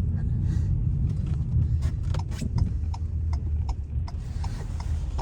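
A car's running engine and tyres on snow as a steady low rumble inside the cabin, with a run of light, regular clicks about three a second.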